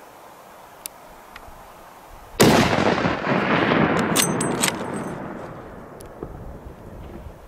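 A single shot from a Weatherby Mark V rifle in .300 Weatherby Magnum about two and a half seconds in, very loud and sudden, followed by a long rolling echo that dies away over about three seconds, with a few sharp clicks during the echo.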